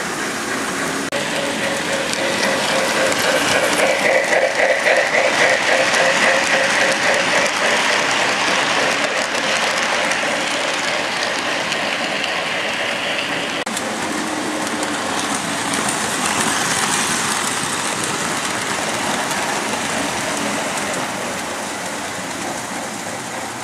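Model trains running on metal track: a steady rumble and clatter of wheels on rails with a motor whine, loudest as a train passes close about four to seven seconds in.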